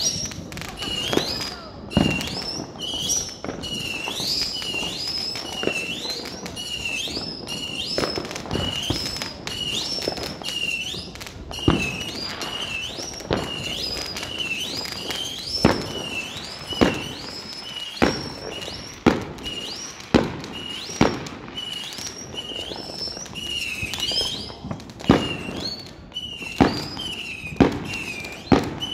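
Fireworks going off: a run of sharp bangs and cracks, some louder near the end. A high rising tone repeats about once a second throughout.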